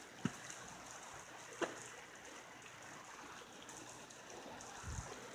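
Faint, steady hiss of light rain, with a couple of soft ticks and a low thud near the end.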